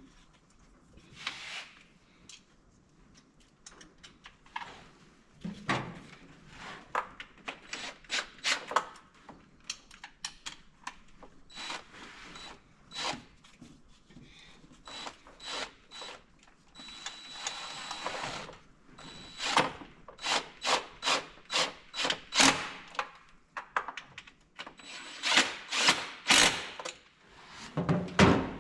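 Irregular scrapes, rubs and sharp clicks of hands working with tools and parts, coming in quick clusters through most of the stretch.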